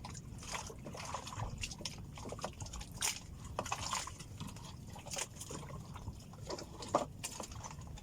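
Sea water sloshing and lapping against a small fishing boat, with irregular small splashes and a few light knocks.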